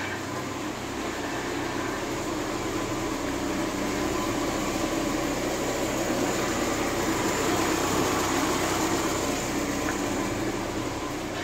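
A steady mechanical running noise, growing a little louder in the middle and then easing, with no clear rhythm.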